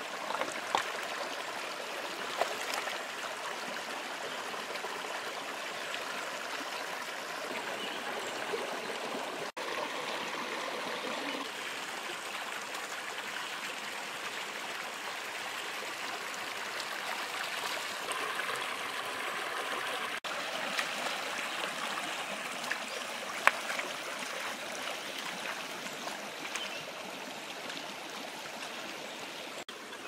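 Shallow rocky stream running over stones, a steady rush of water, with a few brief sharp splashes and knocks from someone wading and reaching into it, the sharpest well into the second half.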